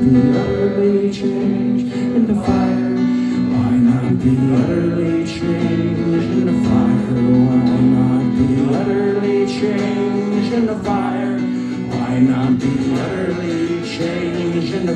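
Acoustic guitar strummed in a live performance, chords ringing between regular strums, heard through a crowd-held phone microphone.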